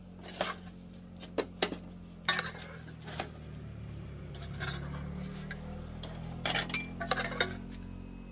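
Bowls and eating utensils clinking as a meal is set out: a series of sharp, irregular clinks, several of them close together near the end, over a low steady hum.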